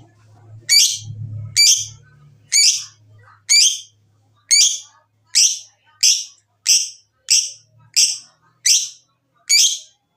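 Lovebird giving a series of short, sharp high-pitched calls, roughly one a second, coming a little faster toward the end.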